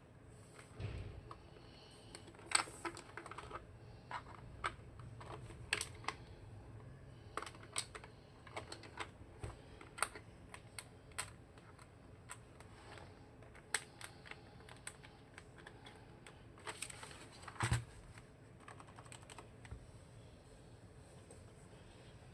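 Typing on a YK105 low-profile mechanical keyboard with red linear switches: irregular, unhurried keystrokes, with a louder cluster of key presses about 17 seconds in.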